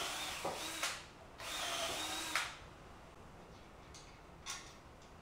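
Electric drill boring holes in timber in two short runs, each about a second long, with a brief pause between them. A single light knock comes near the end.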